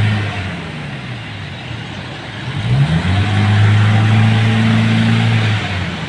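Diesel engine revved hard about two and a half seconds in and held at high revs for about three seconds before dropping back, as in a smoke-emission free-acceleration test. A steady engine note at high revs also fades out within the first second.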